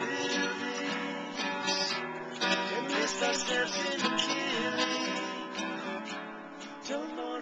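Two acoustic guitars strummed together in a song, with men singing over them.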